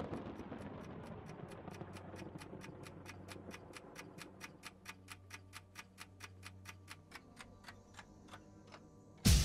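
Steady, fast ticking like a clock, about four ticks a second, over a low rumble and hum that fade away. Near the end a sudden, very loud burst of noise cuts in.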